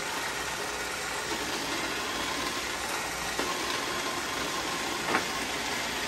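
iRobot Roomba 690 robot vacuum running steadily, its vacuum fan and brush and drive motors whirring as it strains to tow a toddler in a ride-on toy, a load too heavy for it to pull. A short knock comes near the end.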